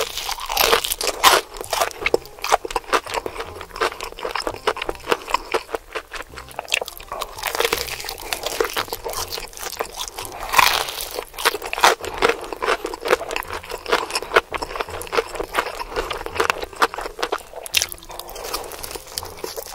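Close-miked biting and chewing of crispy fried chicken: a dense run of crackling crunches from the fried breading, with louder crunches at each fresh bite, several times over.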